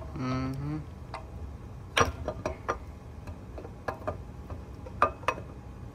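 LS engine camshaft being slid by hand through the block's cam bearings: scattered sharp metal clicks and taps as it is worked in, the loudest about two seconds in and again about five seconds in.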